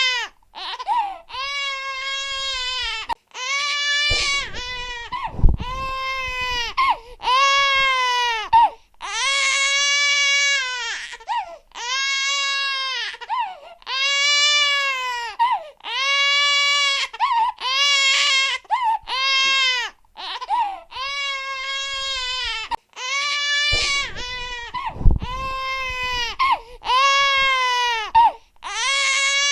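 Infant crying hard: a string of loud wails, each about a second long, rising and then falling in pitch, broken by short gasps for breath. A low bump sounds twice.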